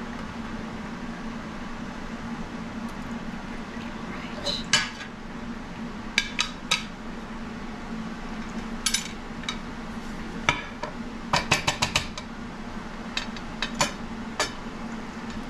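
Copper gelatin mold and glass plate clinking and knocking as they are handled and set together on a wooden counter: scattered sharp taps, with a quick run of several near the end. A steady low hum runs underneath.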